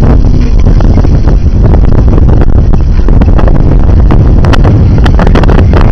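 Wind buffeting the microphone on a sailboat: a loud, steady rumble, with a few sharper knocks near the end.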